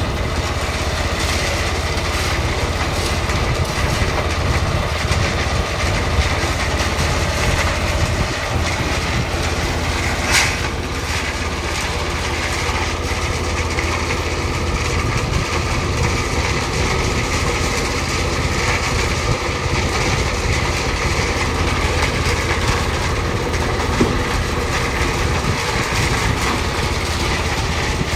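A construction machine's engine running steadily, with two brief sharp noises: one at the very start and one about ten seconds in.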